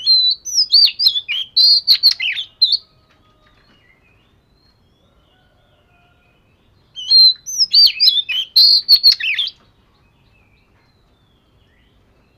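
Oriental magpie-robin singing: two phrases of rapid, varied whistles and slurred notes, each about two and a half seconds long, separated by a pause of about four seconds.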